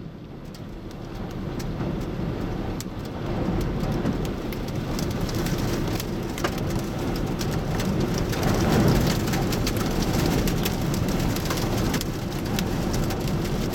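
Heavy rain pelting a vehicle in a thunderstorm: a dense steady rush of rain with many sharp individual drop strikes, building up over the first two seconds.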